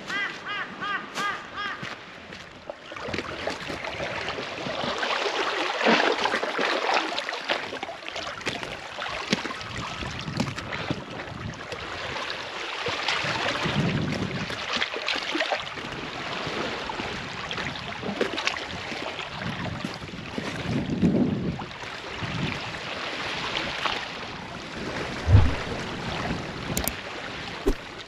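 Sea water washing and lapping against the rocks of a shoreline in uneven surges. A bird calls in a quick series of short notes in the first couple of seconds.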